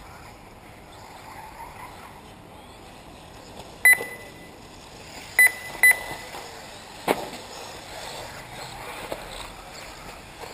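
Electronic beeps from the race lap-timing system: one beep about four seconds in, then two short beeps close together about a second and a half later, all on the same pitch. A single sharp knock follows about seven seconds in.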